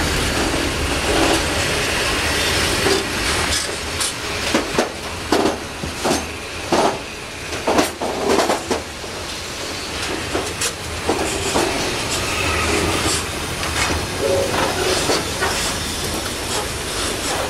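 Covered freight wagons rolling past close by, the wheels running over the rails with a steady rumble. A run of sharp clacks over rail joints comes in the middle.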